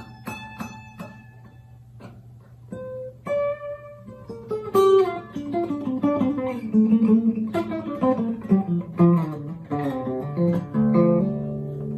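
Acoustic guitar music: a few single plucked notes, then a quick run of picked notes, ending on a chord left ringing near the end.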